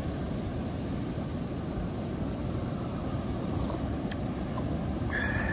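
Steady wind rumble on the microphone, mixed with the wash of surf. About five seconds in, a held high organ-like tone comes in, the start of background music.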